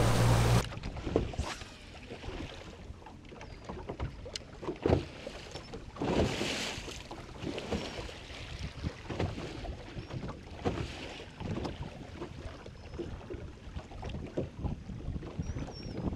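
A brief moment of an outboard motor running at speed, then small waves lapping and slapping against the hull of a stationary bass boat, with wind on the microphone and scattered light knocks on the deck.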